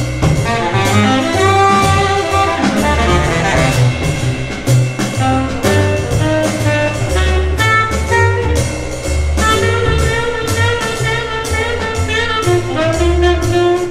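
Jazz with horn lines over a strong stepping bass and drums, played back through MartinLogan Neolith hybrid electrostatic loudspeakers driven by Mark Levinson amplifiers.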